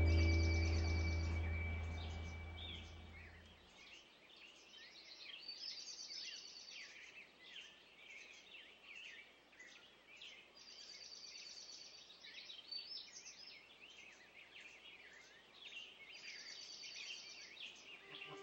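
Music fades out over the first few seconds, leaving many small birds chirping and singing. A rapid high trill is repeated about every five seconds.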